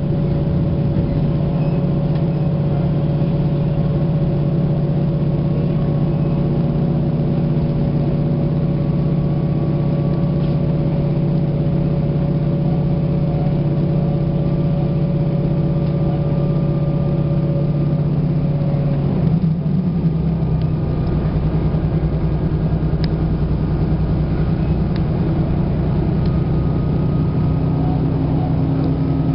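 Steady engine drone heard from inside a moving vehicle, with a constant pitched hum. About two-thirds of the way through, the engine note shifts and then runs on steadily.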